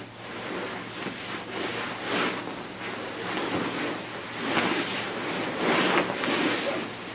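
Nylon sleeping bag and inflatable sleeping pad rustling in irregular swishing swells as a person shifts and rolls onto her side. The swells are loudest about four and a half and six seconds in.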